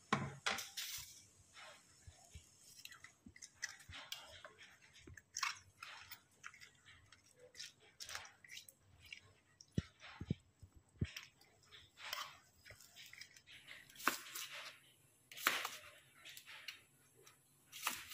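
Soft, irregular crunching and scraping as a spoon turns raw cabbage leaves in a steel pan, with the odd click of the spoon on the metal.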